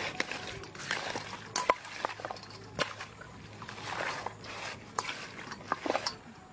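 Hands mixing whole raw frogs with lemongrass stalks and seasoning in a steel bowl: irregular wet squelches and rustles, with sharp clicks as the stalks and frogs knock against the bowl.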